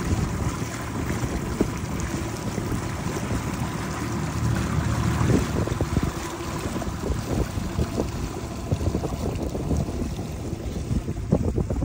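Fishing boat under way on a lake, driven by a 60 hp Tohatsu outboard, with wind buffeting the microphone in irregular gusts over the motor's steady low running sound.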